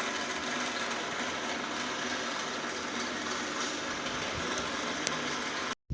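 Steady machine running noise: an even hiss with a low hum beneath it, cut off abruptly near the end.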